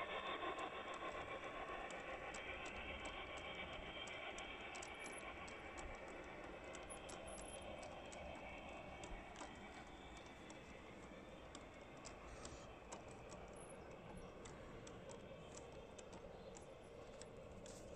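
Garden-scale model freight train rolling along outdoor track, its wheels clicking irregularly over the rail joints. The running noise fades steadily as the train moves away.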